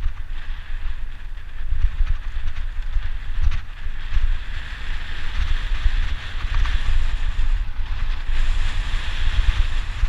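Wind buffeting the microphone of a bicycle rider's camera on a fast downhill descent: a gusty low rumble with a steady hiss above it.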